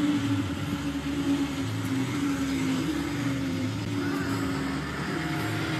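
A truck's diesel engine idling with a steady hum over outdoor background noise.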